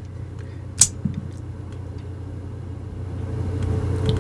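A sharp metallic click about a second in, then a few faint clicks, as the slide of a 1:3 scale die-cast Glock 17 miniature is worked, cycling a dummy round. A steady low rumble runs underneath and grows a little louder near the end.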